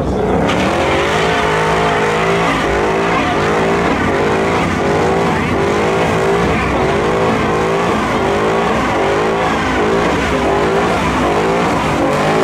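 Ford Mustang doing a burnout: the rear tyres squeal with a pitch that wavers up and down about once a second, over the steady sound of the engine.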